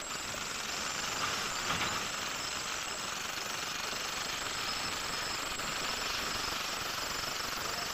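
Electric demolition hammer (breaker) chiselling out concrete at a bridge expansion joint, a steady rapid hammering that runs on without a break.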